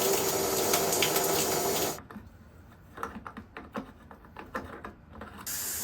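Steady hiss of running water that cuts off abruptly about two seconds in, followed by a quiet stretch of light, irregular clicks and taps from handling the fitting; the hiss starts again near the end.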